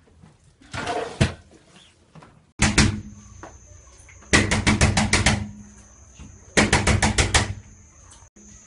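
Someone pounding on a panelled door with a fist, in three bursts of rapid knocks: a short one about two and a half seconds in, then two longer runs of six or seven blows each.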